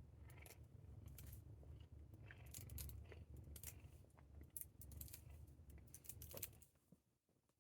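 A domestic cat purring, a faint low rumble that stops about a second before the end. Brush strokes crackle through its fur over the purr.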